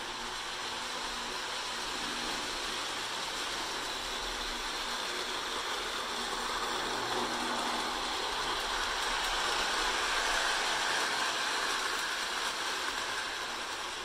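Lionel O-gauge electric model train running on its track: a steady whir of motor and wheels. It grows louder as the train passes close by, about two-thirds of the way through, then eases off.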